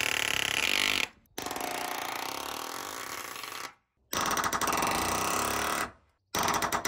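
Pneumatic palm nailer hammering nails into wooden porch framing in runs of rapid blows, each run lasting a second or two and split by short pauses. There are four runs in all. Way loud.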